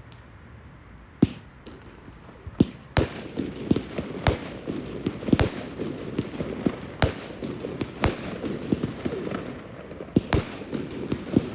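Fireworks display: sharp bangs of bursting shells, the first about a second in, then coming thick and fast with continuous crackling between them from about three seconds in.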